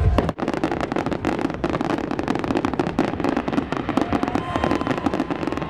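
Fireworks crackling in a dense, continuous stream of rapid sharp pops, with one brief lull just after the start.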